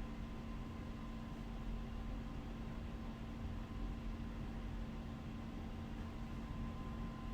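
Steady low hum with a fainter high whine over a hiss, unchanging throughout, with no clicks or taps.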